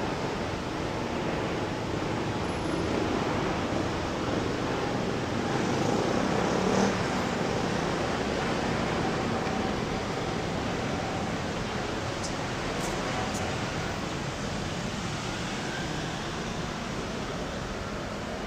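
Steady rushing street noise of road traffic, with a brief louder moment about seven seconds in.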